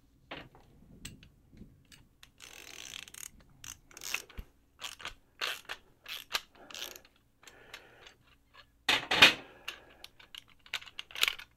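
A socket ratchet clicking in repeated short runs, about one a second, as it tightens a 3/4-inch locking nut onto a threaded rod, with light metal tool clatter; the loudest run comes about nine seconds in.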